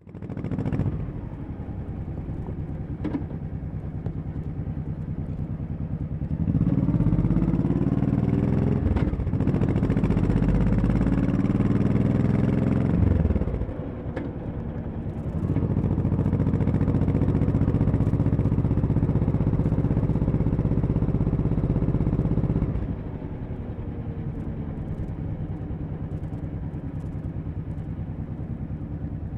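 Honda Shadow 1100 V-twin motorcycle engine running. It is steady and quieter at first, then gets louder with rising pitch for about seven seconds, drops back briefly, pulls louder again, and settles back to the quieter level for the last several seconds.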